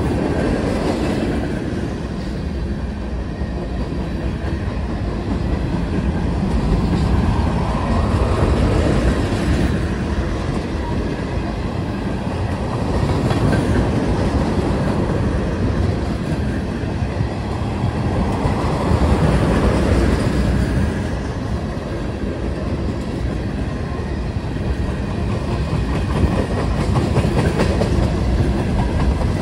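Freight train's tank cars and covered hopper cars rolling past, a continuous rumble of steel wheels on the rails that swells and eases every several seconds as the cars go by.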